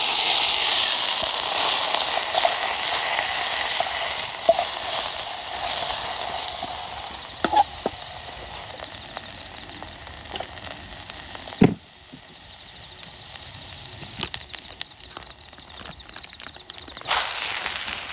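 Food sizzling as it fries in a pan over a campfire, with a few sharp crackles. The sizzle drops off about twelve seconds in.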